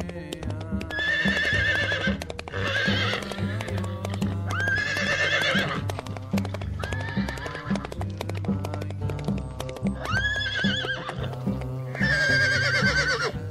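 A horse neighing about six times, each whinny a quavering, high call lasting about a second, over background music with a steady beat.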